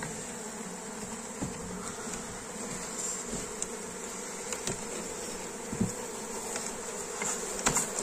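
A large swarm of honeybees buzzing: a steady, dense drone of many bees, which the beekeepers find aggressive. A few faint knocks come near the end.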